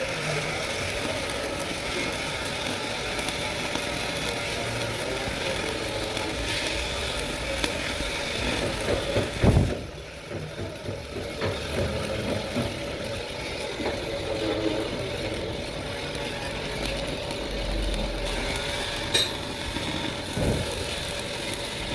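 A machine running steadily with a constant hum, and a single loud knock about nine and a half seconds in.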